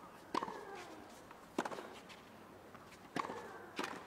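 Tennis rackets hitting the ball back and forth in a doubles rally on a hard court: four hits, the last two in quick succession, with shoes squeaking on the court between them.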